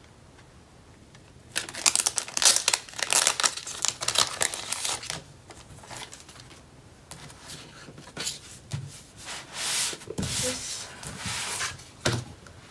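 Plastic wrapping being torn open and crinkled off packaged stationery. It starts about a second and a half in with a stretch of loud crinkling, then goes on as quieter, on-and-off rustling and handling.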